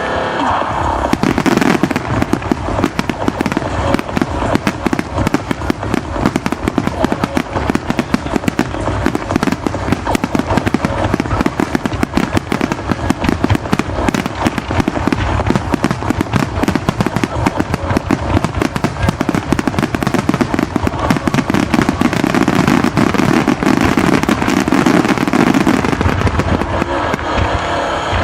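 A continuous rapid barrage of display firework shells bursting and crackling, many reports a second without a break, as in a starmine.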